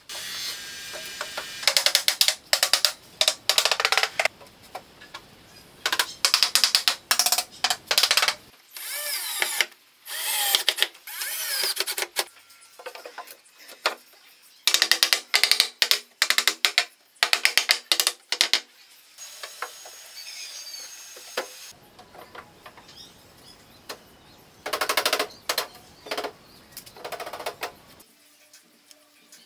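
Workshop assembly noise from fixing plywood panels into a steel-tube bench frame: repeated short bursts of a small power tool running, mixed with rapid clicks and metal taps, stopping and starting every second or two.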